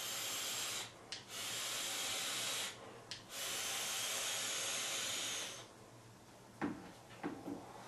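Vaping on an Ample Mace sub-ohm tank: a steady hiss of breath drawn through the tank's airflow and blown out as clouds, in three long stretches, with no popping from the coil. A few short puffs of breath near the end.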